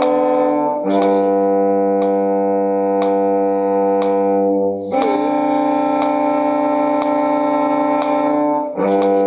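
Bowed string instrument playing long whole notes: double stops over the open D string alternate with a single G, each held about four seconds, with a short dip at each change of bow. A faint tick sounds about once a second.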